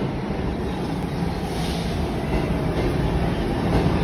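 Subway train running alongside an underground platform: a steady, heavy rumble of wheels on the rails that grows gradually louder.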